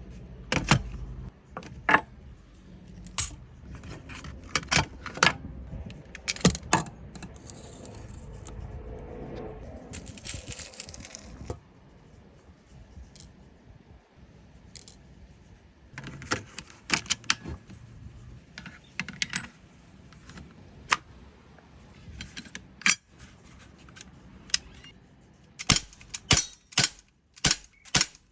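Metallic clicks and rattles of a .177 Beretta APX CO2 BB pistol being handled, with a few scattered sharp snaps. In the last few seconds a steady string of shots starts, about two a second, as the magazine is emptied.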